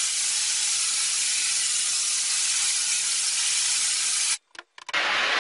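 Water from a hose spray nozzle hissing against a screen-printing screen in a washout sink, washing the unexposed emulsion out of the burned image. The spray stops about four seconds in, a few faint clicks follow, and it starts again half a second later.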